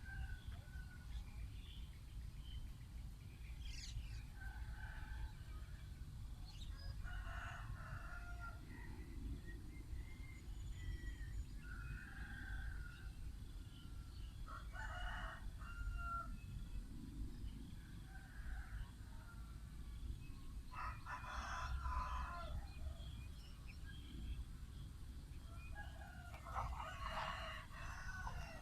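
Animal calls: about four drawn-out calls of a second or two each, several seconds apart, with a few short chirps between them, over a steady low rumble.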